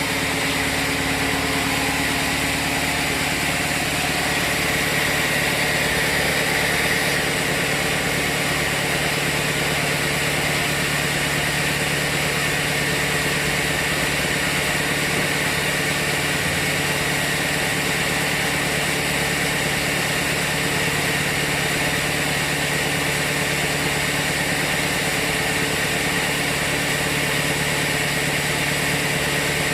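Sawmill machinery running steadily: a constant engine-like drone with a strong high hum, without breaks or changes.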